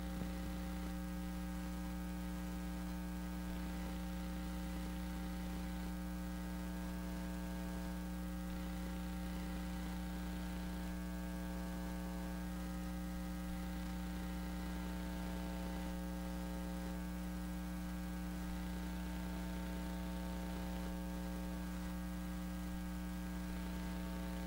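Steady electrical mains hum, a buzz with many overtones that holds unchanged throughout.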